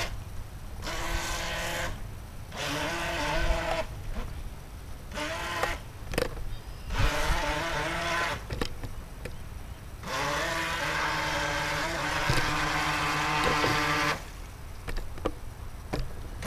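RC speedboat's motor whining in throttle bursts of one to four seconds, starting and stopping sharply with the pitch wavering, the longest run near the end. A few sharp clicks fall between the bursts.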